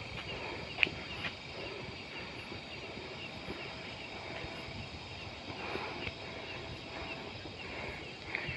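Footsteps and rustling on a forest trail, with faint repeated chirping behind them and one sharp click about a second in.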